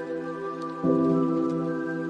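Slow ambient music of held, sustained chords, with a new chord swelling in a little under a second in.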